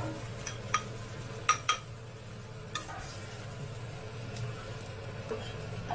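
Metal spatula scraping and clinking against a wok and a ceramic bowl as a meat sauce is scooped out, with a few sharp clinks, two close together about a second and a half in. Faint sizzling and a steady low hum run underneath.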